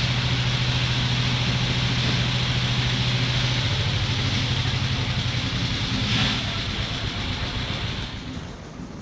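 An engine running steadily at a low hum with a hiss over it. The hum shifts a little about halfway through and dies away near the end.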